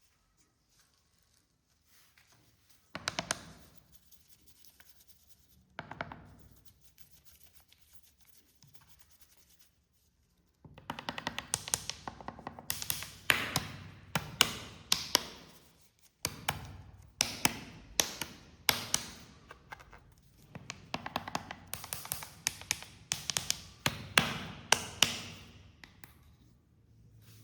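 Sharp taps and clicks: two single knocks in the first several seconds, then from about ten seconds in a quick, irregular run of many taps, several a second.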